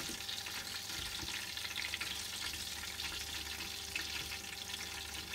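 Beer-battered king prawns deep-frying in a saucepan of hot oil at about 180 °C, a steady sizzle with dense fine crackling as a fork turns them in the oil.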